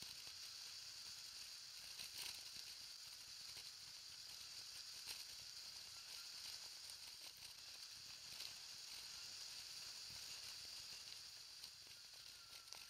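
Kugoo G-Booster electric scooter rolling along a paved path: a faint, steady high hiss of tyres and air, with a thin faint whine and occasional small clicks from bumps.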